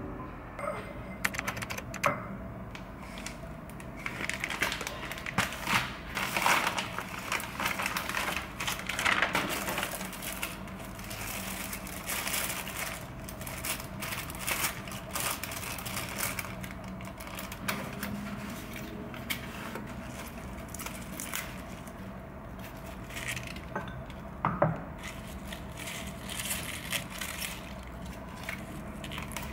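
Leaf lettuce being torn and pulled apart by hand, with the crinkling of a thin plastic clamshell tray: many short, irregular rustles and crackles over a faint steady hum. A single sharp knock about three-quarters of the way through.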